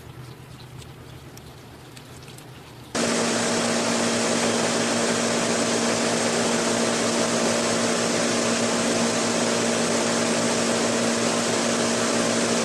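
A loud, steady machine hum with a broad whoosh starts abruptly about three seconds in, over a quieter background with faint clicks.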